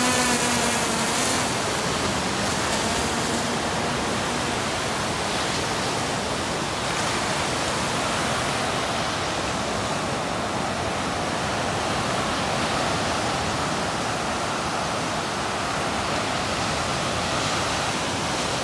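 Steady wash of surf breaking on a sandy beach. In the first second or so, the high whine of a DJI Phantom quadcopter's rotors fades away as it flies off with the bait.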